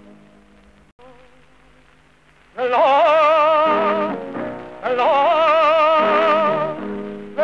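Background music: a soft passage of held notes, then about two and a half seconds in a solo singing voice comes in loudly on long held notes with a wide vibrato, breaking off briefly in the middle.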